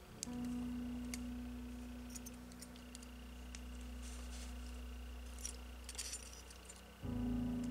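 A soft held chord of ambient background music, changing about seven seconds in, with a few light metallic clicks and clinks from thin etched-steel Metal Earth model parts being handled and fitted together.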